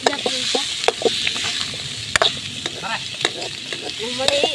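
Chopped onions sizzling in hot oil in an aluminium kadai while a steel ladle stirs them, scraping the pan, with a sharp clink of ladle on metal about every second. The onions are being sautéed with salt.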